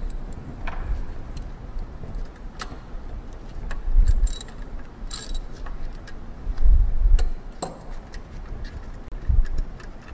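Socket ratchet clicking as the motor mounting bolts are backed out of the pump's motor stool, with a few ringing metallic clinks of tool on bolt and several dull handling thumps.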